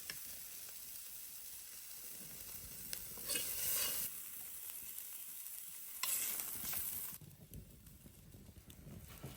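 Pickled wild onion stir-frying in hot oil in a pan: a steady sizzle, louder twice, about three and six seconds in, then dying down near the end.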